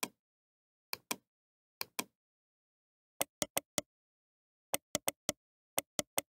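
Computer mouse button clicking: sharp clicks in pairs about a second apart, then quicker runs of about four clicks each, with dead silence between.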